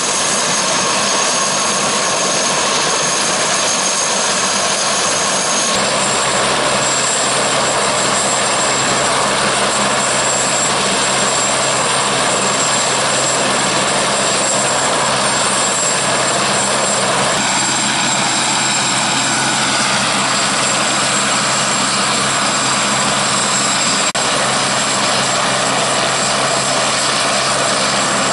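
Eurocopter AS350 helicopter's single turboshaft engine and rotor running steadily on the ground: a loud, continuous turbine whine over a low drone. About six seconds in, the whine jumps up in pitch and the low drone grows stronger.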